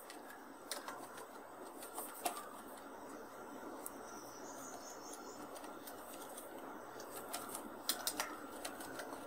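Faint, scattered clicks of computer keyboard keys being typed, a few keystrokes at a time, over a steady low hiss.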